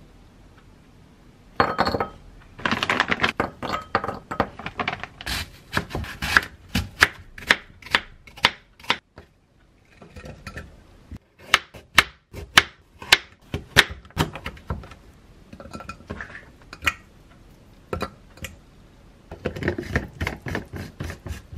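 Kitchen food-prep sounds: a rapid run of sharp clicks and knocks from a spoon and knife against bowls and a wooden cutting board. They come in clusters, thinning out midway, with a dense burst again near the end.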